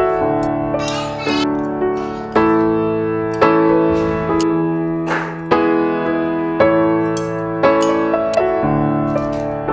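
Background piano music, with notes and chords struck about once a second and left to fade.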